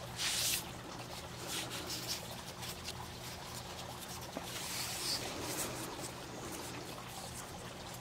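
Plastic flagging tape crinkling and rustling as it is wound tightly around a young fig trunk, with a louder rustle right at the start.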